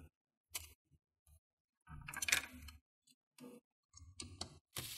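Scattered small clicks and ticks of a screwdriver turning the tiny screws that hold a laptop's hinge to its chassis, with one longer, louder clatter about two seconds in.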